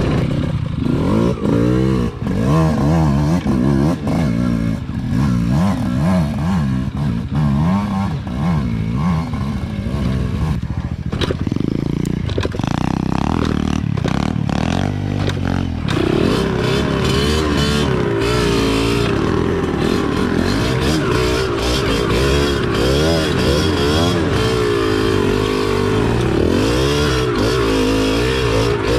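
Small motorcycle engine running off-road, revving up and down unevenly so its pitch keeps rising and falling, with a rougher, noisier stretch around the middle.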